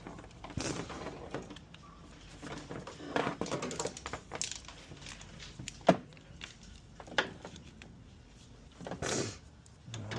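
Handling noises as a diagnostic tester and its leads are set up: rustling and clattering in several spells, with two sharp clicks about six and seven seconds in.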